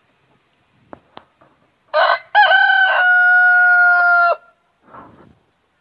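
Rooster crowing once: a short opening note, then one long, level held note of about two seconds that cuts off sharply.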